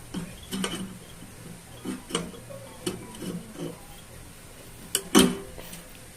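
Sharp clicks and taps of hand tools working metal on a microwave magnetron's old filament socket as it is cut and pried off. The clicks come singly and in small clusters, with two loud snaps about five seconds in.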